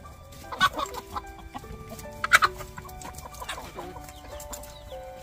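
Chickens clucking, with two louder calls about half a second and two and a half seconds in.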